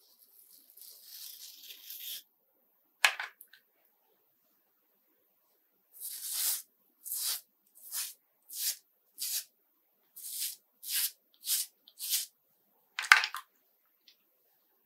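Shaving brush worked over a lathered scalp: a soft rustling at first, then about nine short scratchy strokes roughly two-thirds of a second apart. A sharp knock comes about three seconds in and a louder one near the end.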